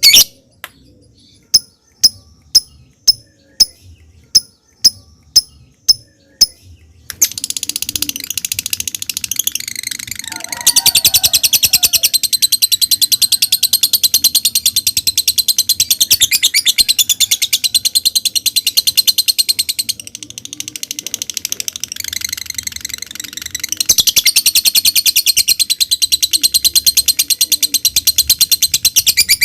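Lovebird giving sharp single chirps about twice a second, then breaking into ngekek: a long, loud, fast chattering trill that runs on for many seconds, eases off briefly about two-thirds through and comes back at full strength.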